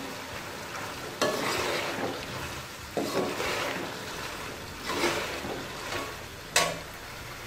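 Boiled black chickpeas frying in ghee, sizzling steadily while a metal ladle stirs them in sweeps every couple of seconds, with a sharp clink of the ladle against the aluminium pot near the end.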